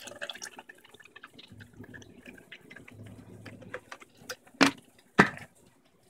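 Water dripping and trickling from the plastic fabric softener dispenser cup lifted out of the centre post of an Electrolux LDD16 top-load washer. Near the end, two sharp clicks about half a second apart as the dispenser is set back in place.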